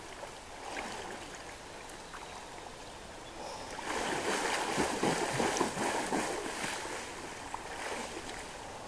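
Steady running water of a shallow river, with a person splashing through it as he swims for about three seconds, starting around four seconds in, then wading.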